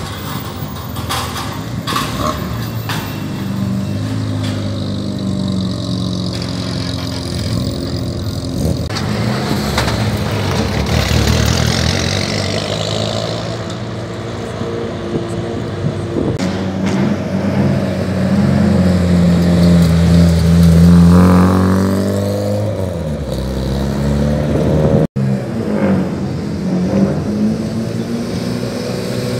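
Rally cars' engines running as the cars move slowly past, one after another, with blips of the throttle. The loudest car passes close about two-thirds of the way in and revs up before the sound cuts abruptly.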